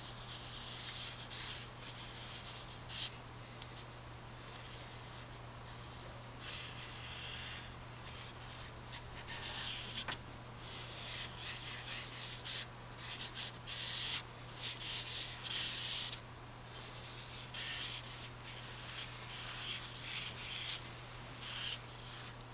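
A stick of charcoal scraping and rubbing across drawing paper in quick strokes, each one a short hiss, in irregular runs with brief pauses between them. A steady low hum runs underneath.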